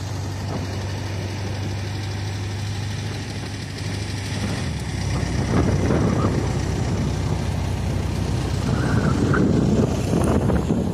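Engine of an open roll-cage off-road buggy running with a steady low hum, then louder and rougher from about four and a half seconds in as it drives along a dirt track.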